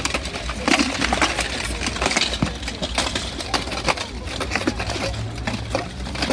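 Armored combat fight: a rapid, irregular run of clanks and knocks as weapons strike armor and shields, over a steady low rumble.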